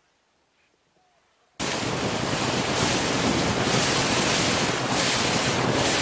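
Loud rush of wind blowing across the microphone together with the sea, starting abruptly about a second and a half in after near silence.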